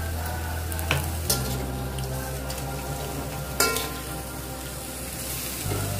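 Ensabi greens with dried shrimp sizzling in oil in an aluminium wok as a metal spatula stir-fries them. The spatula strikes the wok sharply about a second in and again a little past three and a half seconds.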